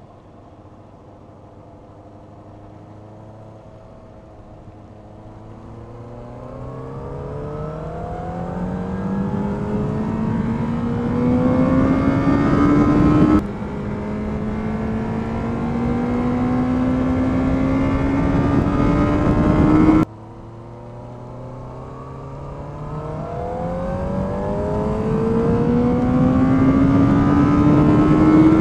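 Honda CBR600RR's inline-four engine heard from on the bike, pulling hard out of a slow corner. It climbs steadily from low revs, drops suddenly about halfway through as it shifts up, climbs again, drops again about two-thirds through, and winds up once more to high revs near the end.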